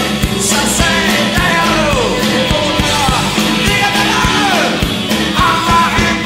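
Rock song playing, with a singer's voice over a steady beat.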